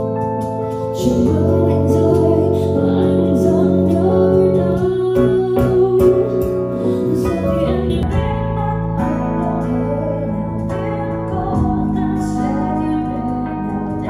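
A song with vocals played back through a home wireless speaker at half volume and recorded from about 1.5 m in a room. It is played first on a Marshall Woburn II, then on a Bang & Olufsen Beoplay A9 (4th gen).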